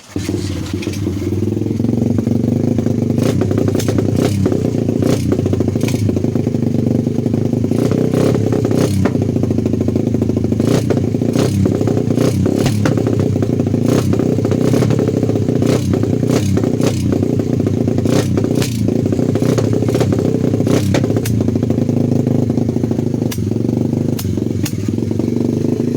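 A 125 cc pit bike's four-stroke single-cylinder engine starts on choke, catching about half a second in, then runs steadily. Irregular sharp pops and clatter come through the running. These are the misfiring and popping into the exhaust that the owner puts down to the ignition or the valves.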